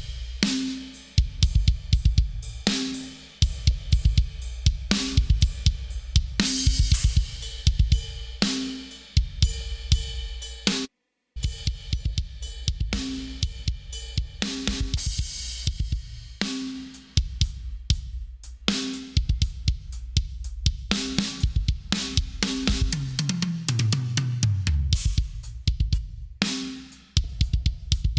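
A sampled acoustic drum kit from BFD3 plays a steady rock groove of kick, snare, hi-hat and cymbals, processed through an API console emulation and a compressor that leaves the cymbals sounding more closed. The playback stops for a moment about eleven seconds in and then restarts. A descending tom fill comes near the end.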